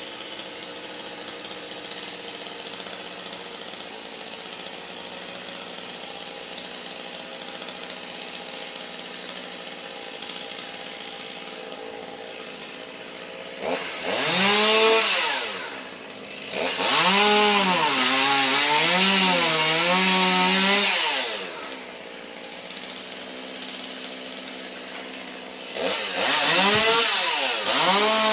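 Gas chainsaw idling steadily, then revved to full throttle three times from about halfway in, its pitch wavering as it loads up in the wood while cutting, and dropping back to idle between cuts.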